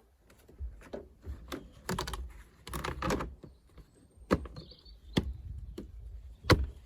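Irregular clicks, knocks and rattles of the plastic trim over the wiper linkage being handled and fitted back into place, with one sharp knock near the end.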